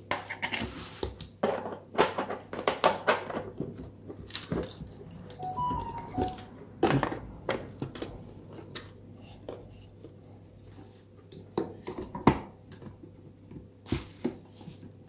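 Plastic back covers being handled and pressed onto a double-sided metal clock: irregular clicks and knocks of hard plastic parts, with bubble wrap crinkling under them.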